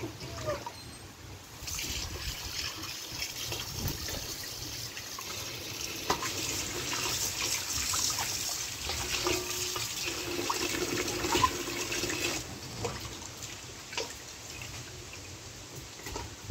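Tap water running into a steel bowl in a stainless steel sink, splashing over raw duck meat being rinsed by hand. The tap starts about two seconds in and is shut off after about ten seconds, leaving the swish and clatter of hands working the meat in the bowl.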